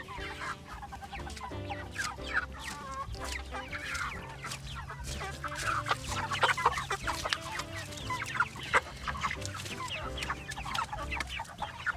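A flock of chickens clucking and squawking in many short, sharp calls as they are rounded up for butchering, with music playing in the background.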